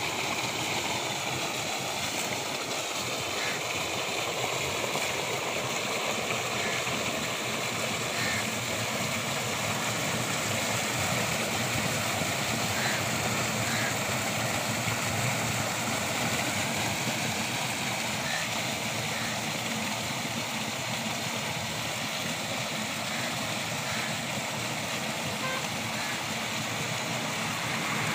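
Water from a tubewell's outlet pipe pouring into a round masonry tank: a steady, continuous rushing splash.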